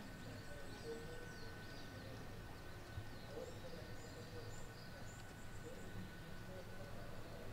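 Faint outdoor ambience: small birds chirping now and then over a low, steady rumble.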